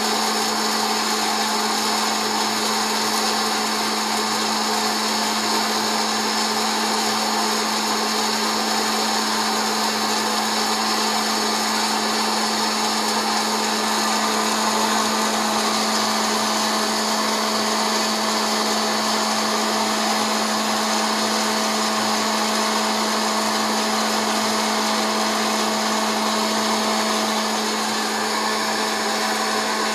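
Hot-air popcorn popper's fan motor running with a steady whir and a constant hum, heating the kernels before any popping starts.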